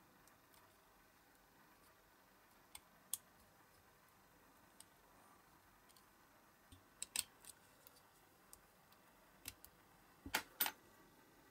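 Scattered sharp clicks and ticks of a hobby knife and small hand tools working a cast resin part in a silicone mold. A cluster of clicks comes about seven seconds in, and a louder double click comes near the end.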